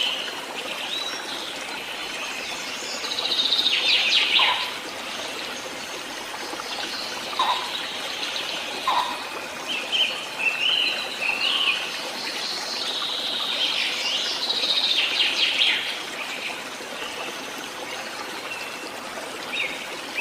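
Several birds chirping and singing in short phrases over a steady hiss of running water, as in a nature ambience recording.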